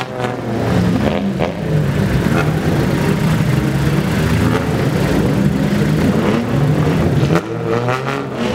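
Old Japanese sedans' engines and exhausts running as the cars pull away slowly, with a steady low note and a rev that rises near the end.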